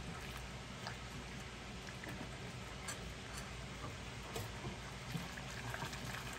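Silicone whisk stirring a thin soy sauce and garlic mixture in a small metal saucepan, with scattered light ticks and patter as the sauce heats toward a boil.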